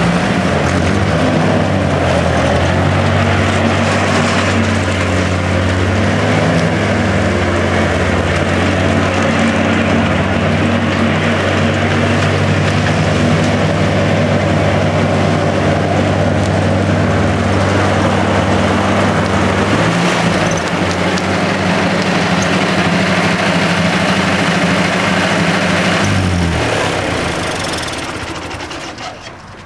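1964 Ford 4000 tractor's four-cylinder engine running steadily, shifting in pitch about two-thirds of the way through, then shut off and winding down near the end.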